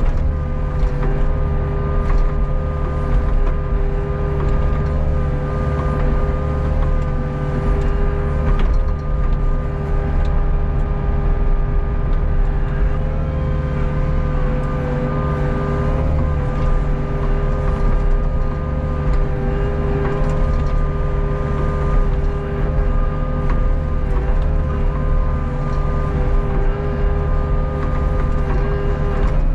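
Hitachi ZAXIS 48U mini excavator's diesel engine and hydraulics running steadily under working load, heard from the operator's seat as the arm and bucket dig. A deep engine drone carries a steady hum, with occasional light knocks.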